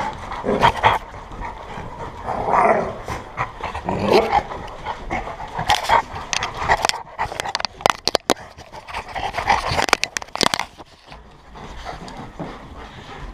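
Several dogs milling close around the camera, making short snuffling and whining noises. A run of sharp clicks and knocks comes in the middle as the dogs nose and brush against the camera.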